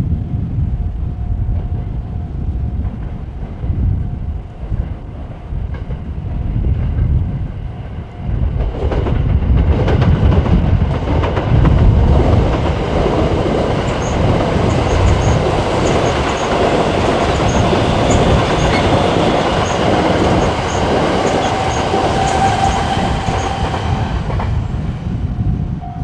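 A train passing through a railway level crossing, its rumble building from about eight seconds in, with the wheels clicking rhythmically over the rail joints. The crossing's warning bell rings as a steady tone under it.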